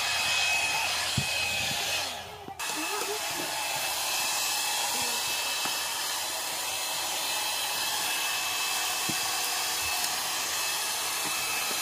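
Handheld hair dryer blowing hot air steadily, with a thin motor whine over the rush of air, heating an old vinyl floor tile to soften its glue. The sound drops out for a moment about two seconds in, then resumes.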